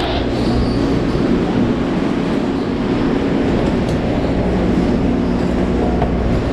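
Steady mechanical drone of a cruise ship's machinery and ventilation, an even rushing noise with a low hum underneath.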